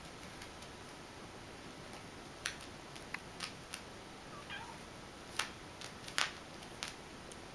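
Kitten playing with a ball of yarn on carpet: scattered light clicks and scuffs, the loudest a little past five and six seconds in, and a faint short mew with falling pitch about four and a half seconds in.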